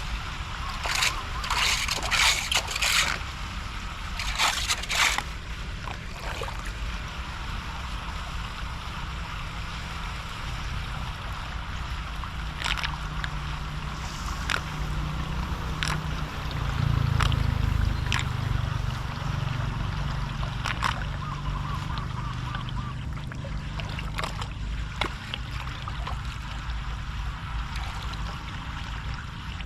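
Floodwater sloshing and gurgling as it drains, with a run of sharp splashes in the first few seconds and a few single ones later.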